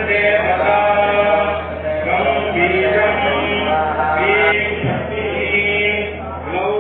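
A group of men's voices chanting a Sanskrit mantra in unison. The chant is continuous, with held notes that glide between pitches, over a steady low drone.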